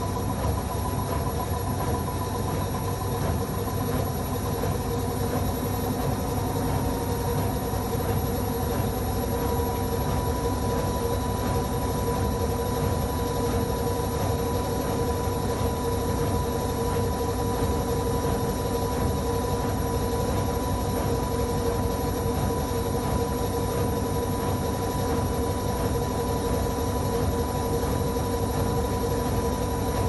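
Electrolux EW7WR447W washing machine spinning its drum at high speed, a steady low rumble with a steady high whine over it that shifts slightly in pitch several seconds in. This is the spin in which the owner hears a rubbery squeak, present only on loaded spins at 800 rpm and above.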